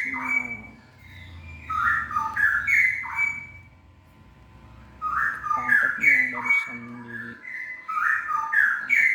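Straw-headed bulbul (cucak rawa) singing: three short phrases of whistled notes stepping up and down, each a second or so long, with pauses between.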